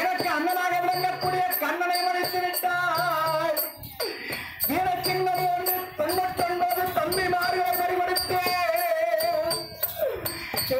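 Therukoothu folk-theatre music: a held, wavering melody line over jingling bells and regular percussion strikes, with brief pauses between phrases.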